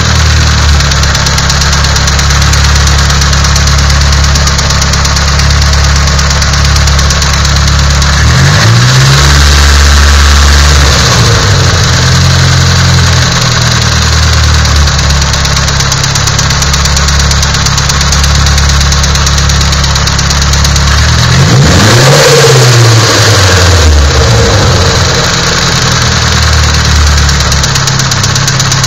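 Nissan SR20DET turbocharged four-cylinder engine idling with a knocking sound, revved up briefly twice and settling back to idle.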